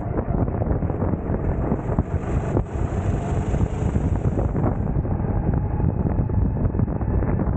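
Wind buffeting the onboard camera's microphone on a racing kart at speed, with the kart's engine running underneath.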